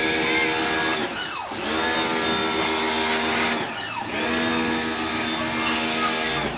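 Pressure washer's motor running with a steady hum, its pitch dipping sharply and recovering three times, about every two and a half seconds.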